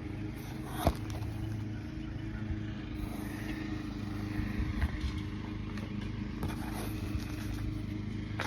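Steady low mechanical hum, with a sharp click about a second in and a few fainter clicks.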